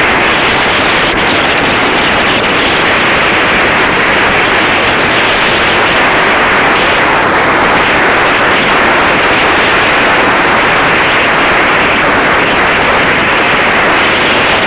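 Heavy wind noise buffeting the microphone: a loud, steady rushing hiss that covers everything else.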